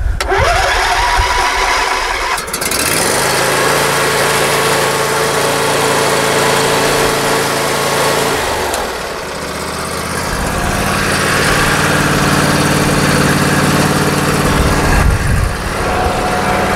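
John Deere LA145 lawn tractor's 22-horsepower V-twin engine running steadily, just started off a booster because its battery is low. Its sound dips briefly about nine seconds in, then runs on a little louder.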